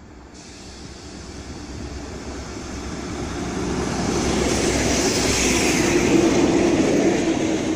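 A convoy of four diesel locomotives running light, led by a BB 69400, passes close by. The engines drone with a steady hum over the rumble of wheels on the rails, growing louder as they approach and loudest about six seconds in.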